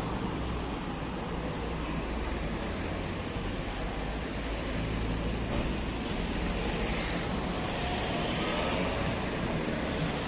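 Road traffic: cars driving past, a steady rumble of engines and tyres, with one vehicle passing louder about two thirds of the way through.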